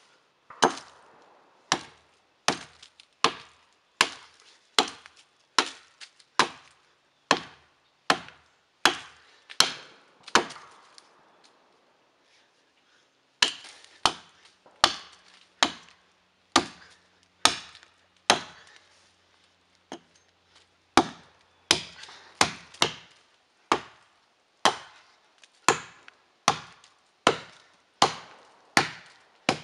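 Axe chopping into the trunk of a standing dead tree to fell it: sharp, even strikes a little faster than one a second, with a pause of about three seconds a third of the way through before the chopping resumes.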